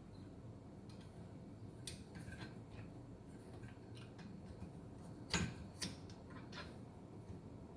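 Light, scattered clicks and taps of a screw and hand tool being worked into a metal bracket, with two sharper clicks about five and a half seconds in.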